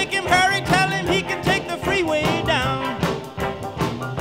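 Upbeat background music with a steady beat and a melody line that slides up and down in pitch.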